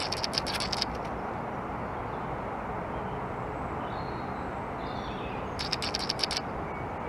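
Steady low outdoor background rumble with no clear single source, broken by two short bursts of crackly clicks, one in the first second and one about six seconds in, and a few faint high chirps like small birds a little past the middle.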